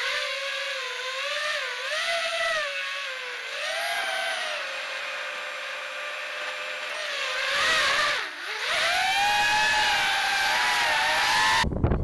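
Four Sunnysky X2204S brushless motors spinning HQ 5x4x3 props on a 5-inch FPV quadcopter, whining as heard from its onboard camera; the pitch rises and falls with the throttle, dips sharply about eight seconds in, then climbs again. Near the end it cuts off abruptly to gusty wind noise on the microphone.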